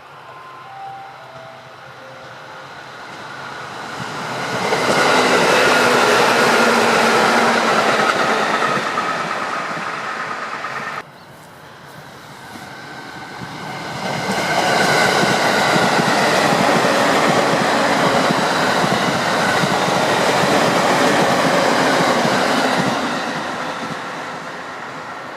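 Trains on the JR Utsunomiya Line passing close by, the rumble and clatter of wheels on rail swelling and fading. It breaks off abruptly about eleven seconds in, and a second pass builds up a few seconds later and runs for about nine seconds before dying away.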